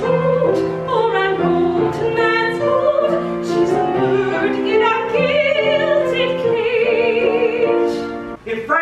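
Live stage musical number: singing in a theatrical, operatic style, with notes held with vibrato over instrumental accompaniment. The music breaks off shortly before the end.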